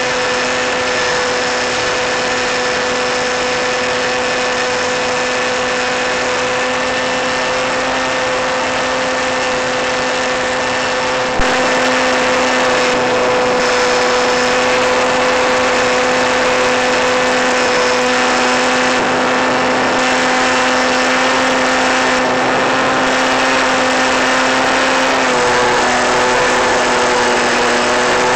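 Model airplane's motor and spinning propeller heard from on board: a steady hum with a held tone and many overtones. There is a brief click about 11 seconds in, and the pitch drops slightly about 25 seconds in as the throttle eases.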